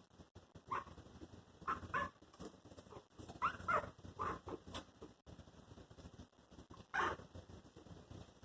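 Newborn Chihuahua puppies squeaking and whimpering: short, high, irregular squeaks from several pups, one louder cry about seven seconds in.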